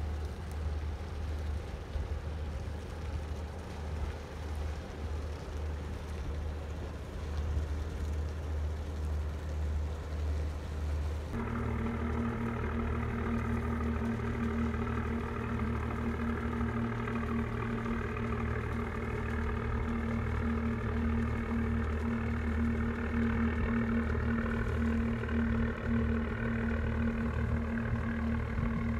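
Engine running steadily. First a low rumble, then about a third of the way in the sound changes abruptly to a slightly louder, even hum with a clear steady pitch and overtones.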